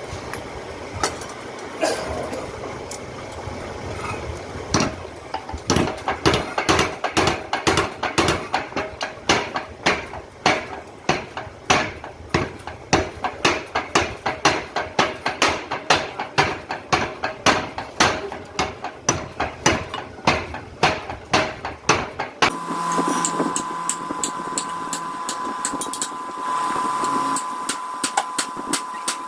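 Power hammer striking a hot steel billet in a fast, even run of heavy blows, about two to three a second. Near the end the blows stop and give way to a steady hum with a thin high tone.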